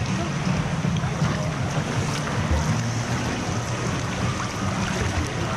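Rushing water of a fast wave river, rapids and waves churning close around the swimmer.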